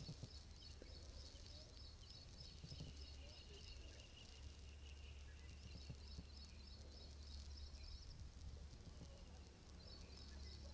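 Near silence: room tone with a steady low hum and faint, rapidly repeating high chirps that come and go.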